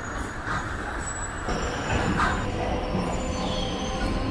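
Electric multiple-unit suburban train heard from inside the coach as it moves off along a station platform: steady running noise of wheels on rail with faint motor tones, and a faint whine that rises near the end as it picks up speed.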